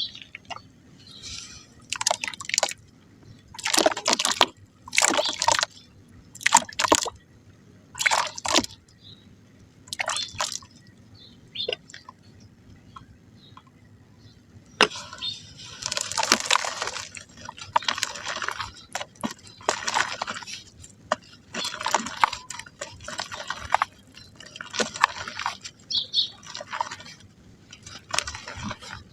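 Lumps of soft dry mud crumbling into water: a series of short wet crackling bursts, separate at first, then longer and closer together from about halfway.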